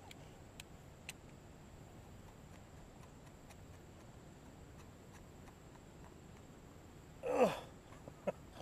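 Faint open-air background with a couple of light clicks, then about seven seconds in a man's loud, falling grunt-like exclamation as the rod is swept up to set the hook.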